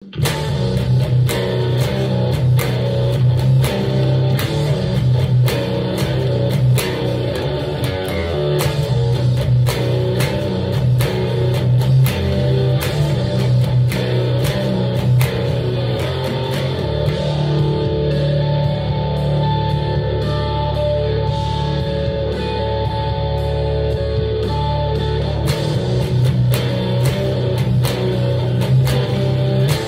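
Fender Aerodyne electric bass played through fuzz in doom/sludge metal riffs: low notes, some held for several seconds, with regular sharp picked attacks.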